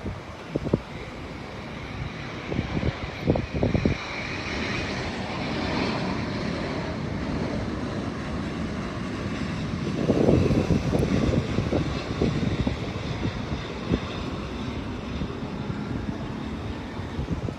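Jet airliner engines, the Rolls-Royce Trent XWB turbofans of an Airbus A350-900, running as the aircraft passes: a steady rumble with a high whine that swells about four seconds in, loudest near the middle.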